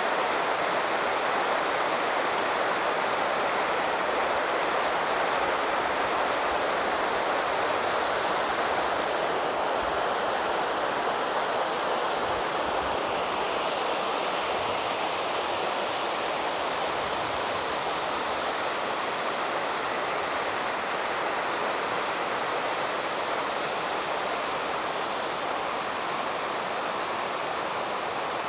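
Shallow river rapids: water rushing steadily over cobbles and stones, a little softer toward the end.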